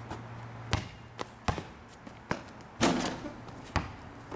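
A basketball being dribbled, bouncing about six times at uneven intervals, with a louder, longer thud about three seconds in.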